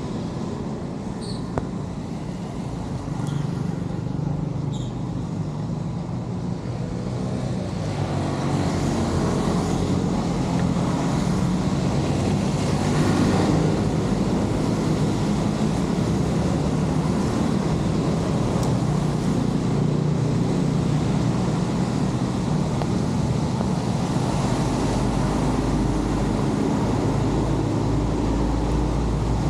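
Floodwater rushing and gurgling steadily into a street drain as it is cleared of trash and debris, getting louder about eight seconds in.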